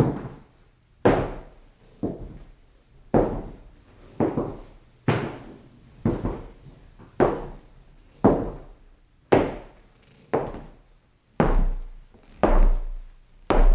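Footsteps on a wooden floor, heard at a distance: slow, even steps about one a second, each a hollow knock with a short ring-out, a few of them heavier near the end.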